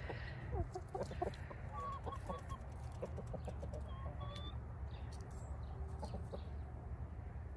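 Hens clucking softly: short low calls in clusters about a second in and again around three to four seconds in, over a steady low hum.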